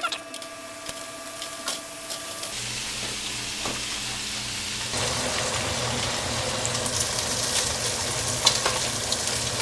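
Bacon frying in a pan: a steady sizzle with sharp crackles and pops of spitting grease, growing louder about halfway through.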